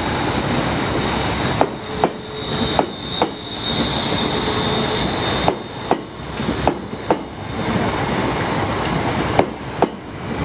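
ScotRail class 380 Desiro electric multiple unit running past over pointwork, its wheels giving pairs of sharp clacks as each bogie crosses the rail joints. A thin, high wheel squeal sounds for a few seconds in the first half.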